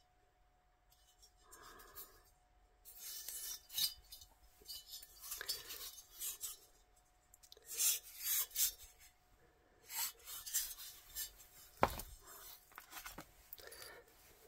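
Cast-aluminium VW cylinder heads being handled and turned over by hand: irregular rubbing and scraping with light clinks, and a sharp knock near the end as metal meets the cardboard-covered floor.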